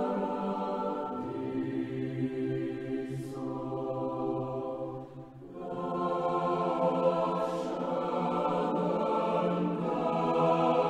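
A choir singing slow, sustained chords in a chant-like style, with a brief break about five seconds in before the voices come back fuller.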